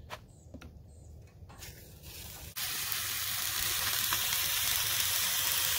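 Fish fillets on a camp-stove griddle and a pan of eggs, potatoes and spinach sizzling steadily, the sizzle starting suddenly a little over two seconds in. Before that, faint bird chirps and a few light clicks.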